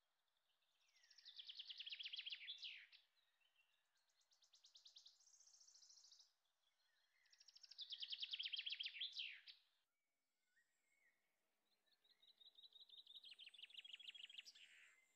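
A songbird singing faintly: phrases of rapid trilled notes, three of them ending in a quick downward flourish, with a softer trill between the first two.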